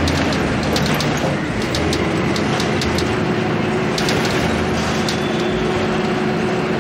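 Engine and road noise heard from inside a moving vehicle: a steady engine hum with frequent rattles and clicks.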